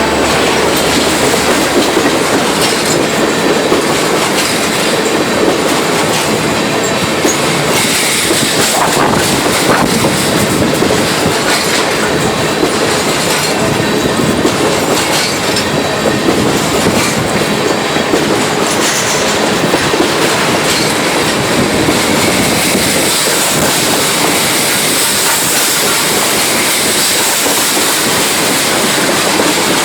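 Canadian Pacific train's cars rolling past on the track, a loud, steady rumble and clatter of the wheels on the rails.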